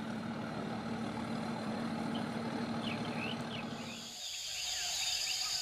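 A cargo barge's engine running with a steady low hum, which stops about four seconds in. A high steady insect buzz rises as the hum ends, and birds give short chirps over the second half.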